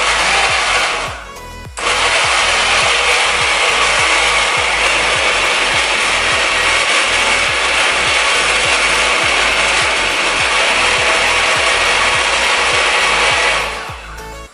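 SilverCrest countertop blender chopping raw tomatoes and peppers with no water added, on its lowest speed: a short burst, a brief pause, then a steady run of about twelve seconds that winds down near the end.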